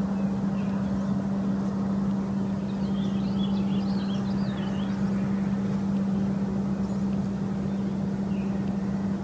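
A steady low mechanical hum over a constant rumbling noise, with faint high warbling sounds from about three to five seconds in.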